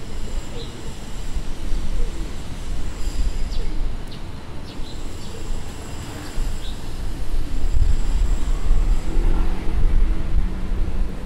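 Street ambience dominated by a low, rising-and-falling rumble of passing vehicles, with a few short high chirps or squeaks over it.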